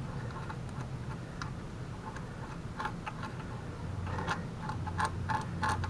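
Light scraping and scattered ticks of a dental pick working dirt out of a mobility scooter's rear suspension hinge, coming more often from about four seconds in, over a steady low hum.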